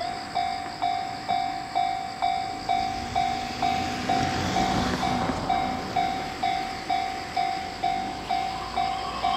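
Japanese railway level crossing warning bell starting up and ringing steadily, about two strikes a second: the crossing signal that a train is approaching.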